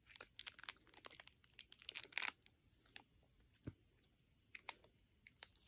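Plastic candy wrapper crinkling and tearing in quick, sharp crackles as a chewy candy is unwrapped by hand, thinning out to a few scattered clicks after about two and a half seconds.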